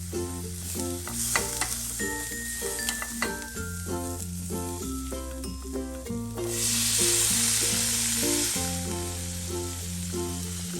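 Food sizzling and frying in a hot pan, the sizzle swelling louder about six seconds in and easing off a few seconds later. Background music with a steady bass line plays throughout.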